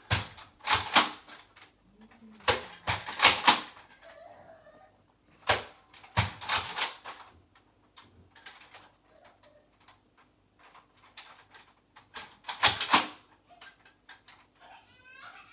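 Nerf foam-dart blaster being cocked and fired: plastic clacks and snaps in about five short clusters a few seconds apart.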